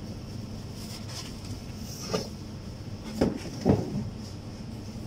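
Steady mechanical hum, with a few short knocks and rustles from produce being handled in the vegetable bins; the two loudest come a little after three seconds in.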